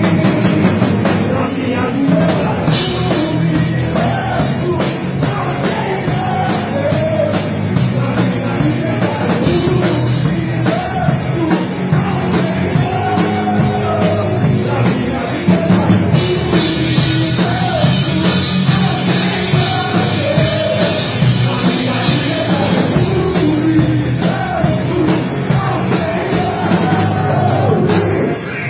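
A band playing rock-style Christian worship music with a drum kit. The cymbals come in about three seconds in and grow louder about halfway through.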